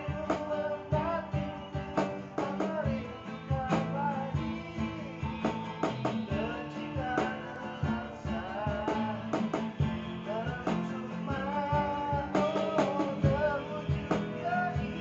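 Acoustic guitar strumming with a wooden cajon struck by hand in a steady beat, and a voice singing along.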